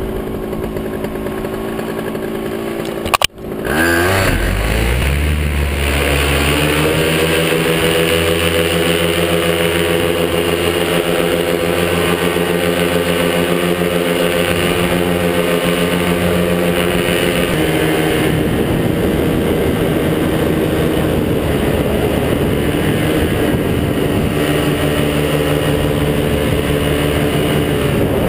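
Top 80 paramotor's small single-cylinder two-stroke engine running. It is quieter at first, and after a sharp break about three seconds in it revs up to a steady high throttle. The pitch shifts slightly about two-thirds of the way through.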